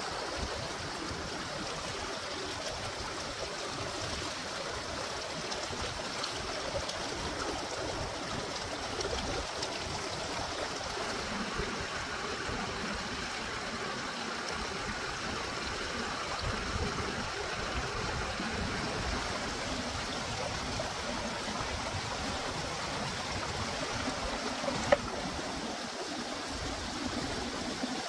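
Shallow rocky stream running and trickling over stones, a steady water sound, with a single sharp knock near the end.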